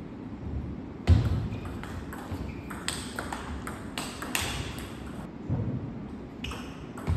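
Table tennis ball clicking off rackets and bouncing on the table during a rally: a string of sharp separate ticks, the loudest about a second in.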